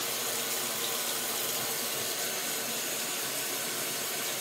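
Water running steadily from a bathtub spout into the tub, an even rushing hiss.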